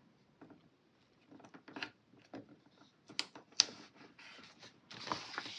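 Handling of a paper sticker sheet: scattered small taps and clicks, then a short papery rustle near the end as a box sticker is peeled off and placed.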